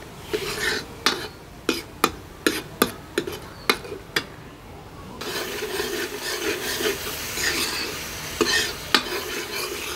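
Steel ladle stirring onion-garlic paste frying in oil in a kadhai (wok). In the first four seconds the ladle clinks sharply against the pan about ten times. From about halfway the paste sizzles steadily under the ladle's scraping, with two more clinks near the end.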